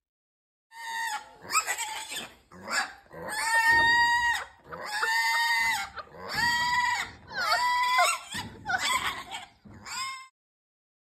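Pet pig squealing while held in someone's arms: a run of about ten high, shrill squeals, the longest about a second each, that stops about ten seconds in.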